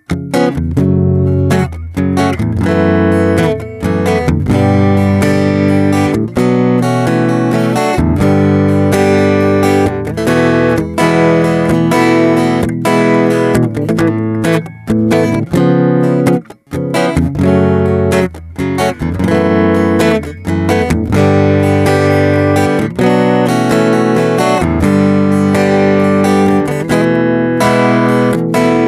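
Flat-body acoustic guitar in a Stratocaster shape, heard through an LR Baggs M1 pickup plugged straight into the recorder, so it has a miked-acoustic tone with no effects. Chords are strummed and picked continuously, with a brief break about sixteen seconds in.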